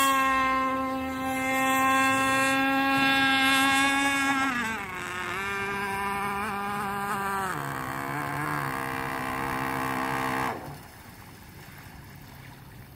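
Gas-powered two-stroke engine of an RC speedboat running at a high, steady pitch at full throttle, then backing off, its pitch dropping in steps about four and a half and seven and a half seconds in. The engine sound cuts off sharply about ten and a half seconds in.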